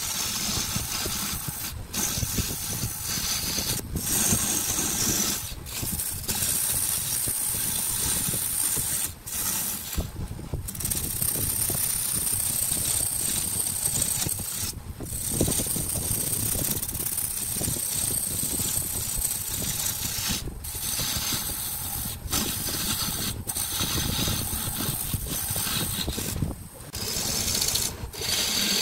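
Wood lathe spinning a wooden blank while a hand-held gouge cuts it: a continuous rough cutting and scraping noise over the machine's running hum. The noise is broken by about a dozen brief dips.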